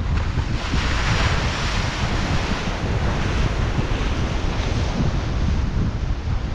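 Wind buffeting the microphone over sea surf breaking on rocks; a wash of surf swells about half a second in and fades a couple of seconds later.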